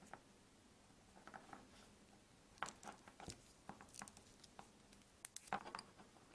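Faint handling noises of small plastic parts being worked by hand: scattered light clicks and rustles, with clusters of sharper ticks about two and a half seconds in and again near five and a half seconds.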